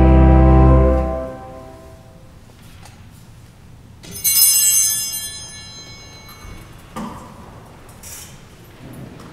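A church organ's held chord ends about a second in and dies away in the church's reverberation. About three seconds later a small altar bell rings once, bright and high, and fades over a second and a half.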